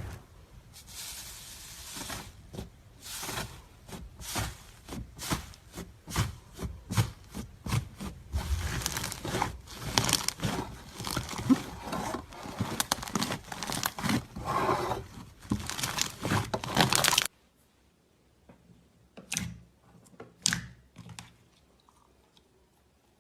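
Slime being squeezed and stretched by hand, crackling and popping in dense runs of sharp clicks. The crackling cuts off abruptly about three-quarters of the way through, followed by a few faint pops.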